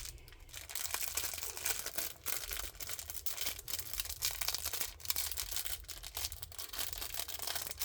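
Plastic packaging crinkling and rustling in irregular crackles as packets of Sofft sponge tools are handled and sorted by hand.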